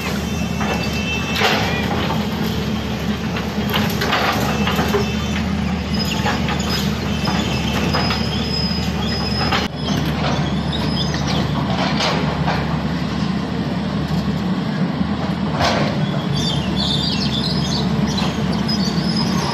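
Tata Hitachi crawler excavator's diesel engine running steadily as it demolishes brick houses, with irregular knocks and clatter of rubble and metal throughout and a few brief high squeals.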